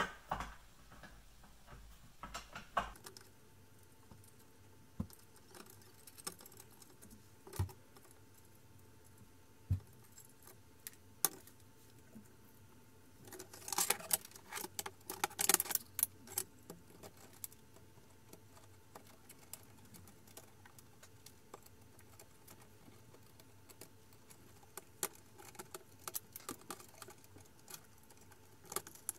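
Scattered clicks and clinks of metal CNC kit parts being handled: the Y-axis carriage on its rods and the aluminium T-slot bed plate being set on it. A busier run of clatter comes about halfway through, and more again near the end.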